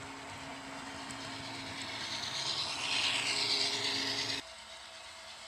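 Model passenger train running past on the layout's track: a steady motor hum with rolling wheel noise that grows louder, then cuts off abruptly about four and a half seconds in.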